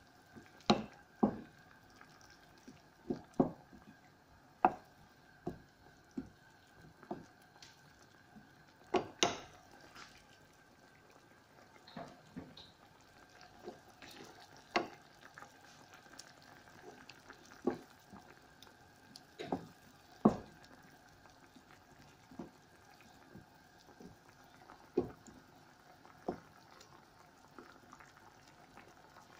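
Wooden spatula stirring a thick chicken curry in a pan, with irregular knocks and scrapes against the pan, a few every couple of seconds. A faint steady hum runs underneath.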